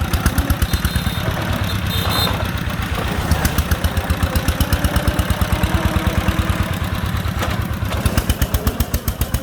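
Single-cylinder diesel engine of a công nông three-wheeler running with a rapid, even chugging beat, which grows stronger and more distinct near the end.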